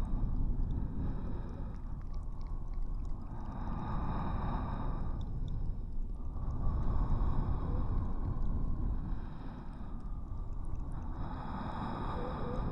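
Layered heavy breathing close to the microphone: slow, loud breaths that swell and fade about three times, with a heavy low rumble under them.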